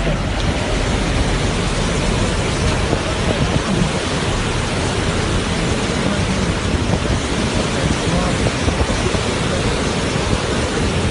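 Water gushing out of a dam's open spillway gates in a steady, loud rush, the floodgates fully opened to release a high outflow.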